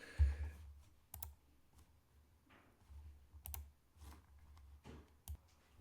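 Faint, scattered clicks and taps from a computer keyboard and mouse, with a few dull low thumps.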